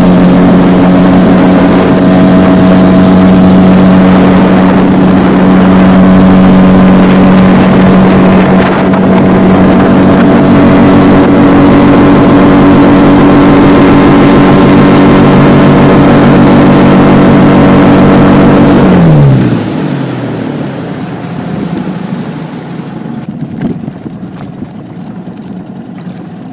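Small outboard motor on a boat running steadily at cruising speed, with water rushing past the hull. About 19 seconds in, the engine note falls sharply and the sound drops to quieter water and wind noise.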